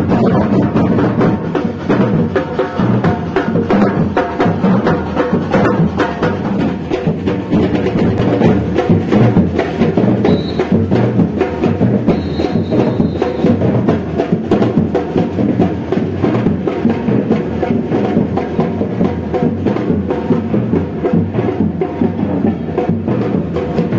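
Music driven by dense, fast percussion: drums with sharp clacking strikes over a continuous full backing, at a steady loud level.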